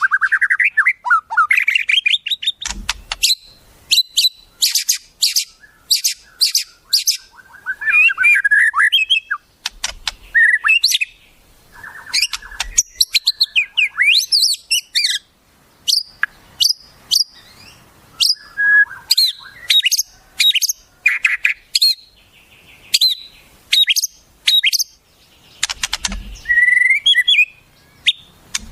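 Wild songbird calls from a masteran song-tutor recording: a busy, varied run of sharp chirps, whistled rising glides and fast trills with only short gaps. A few short knocks come through about 3, 10 and 26 seconds in.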